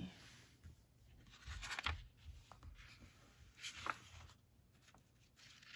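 Paper pages of a paperback picture book being turned by hand: a few soft rustles and flaps of paper, the clearest about two seconds in and again about four seconds in.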